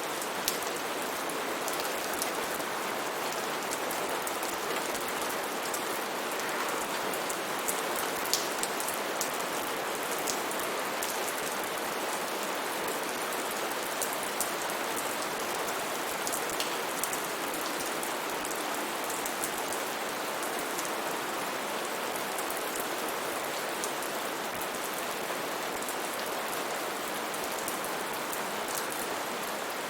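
Steady rain falling, an even hiss with scattered individual drops ticking out above it, a few louder near 8 seconds in.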